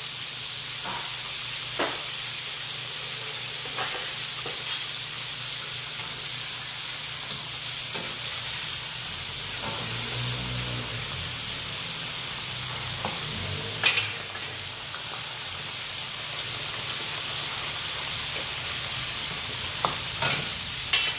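Mud crabs deep-frying in a wok of hot oil, a steady sizzle. A metal ladle stirs them, with a few sharp knocks against the wok, the loudest about fourteen seconds in and several near the end.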